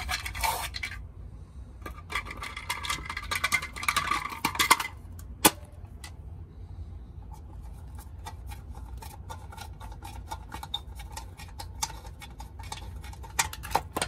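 Plastic cover of a Square D well-pump pressure switch being pushed and worked into place by hand: scraping and rubbing with scattered clicks, the scraping heaviest in the first few seconds, and one sharper click about five and a half seconds in. A low steady rumble runs underneath.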